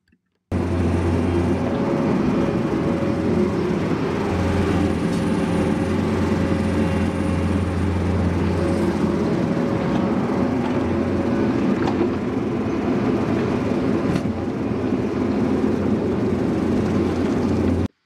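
Bobcat 337 mini excavator's diesel engine running steadily with a deep low hum while the machine works the dirt. It starts about half a second in, with a couple of faint knocks later on.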